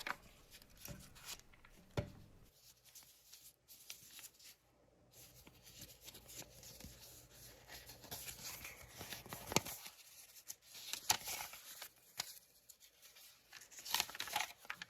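Faint rustling of printer paper being handled, with a few scattered sharp clicks and taps from handling a small metal single-hole punch.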